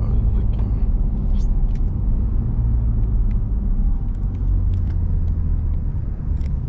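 BMW 135i's twin-turbo inline-six and the tyres on the road heard from inside the cabin while driving: a steady low rumble with occasional light ticks.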